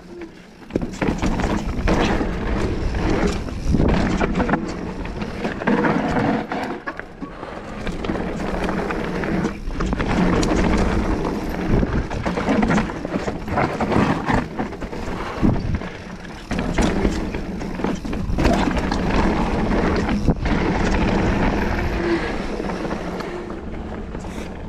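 Mountain bike riding down a rough dirt trail: steady tyre and rolling noise with frequent rattles and knocks from the bike over rocks and roots.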